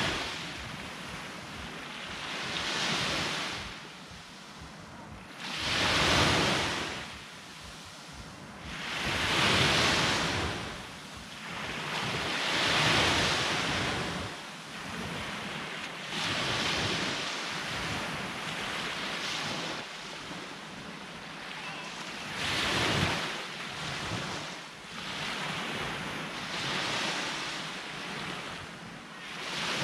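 Sea waves breaking on the shore, each one a hissing wash that swells and fades, coming in about every three to four seconds.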